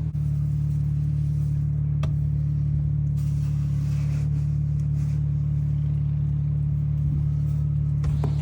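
An engine running steadily with a low, even hum, most likely a car's engine idling. A single sharp click is heard about two seconds in.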